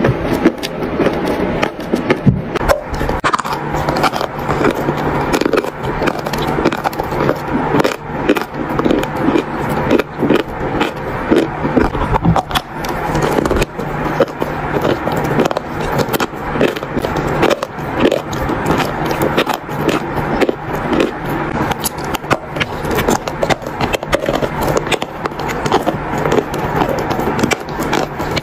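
Dry chalk being bitten and chewed close to the microphone: dense, continuous crunching and crackling.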